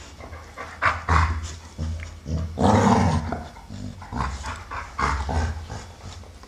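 Two American Staffordshire Terriers play-fighting, with low growls and rough grunts coming in uneven bursts. The loudest come about a second in and around three seconds in.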